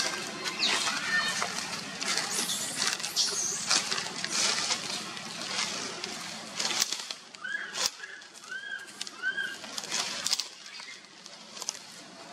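Rustling noise among tree branches and leaves with scattered clicks. A little past halfway come four short, high calls that each rise and fall.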